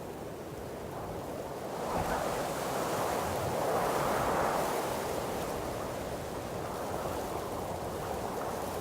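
Wind blowing through trees: a rushing of air and leaves that swells about two seconds in, peaks around four seconds, then eases a little.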